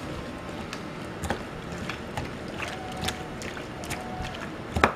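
Raw peeled shrimp being mixed by hand with marinade in a bowl: soft wet handling with scattered light clicks against the bowl, and one sharper knock just before the end.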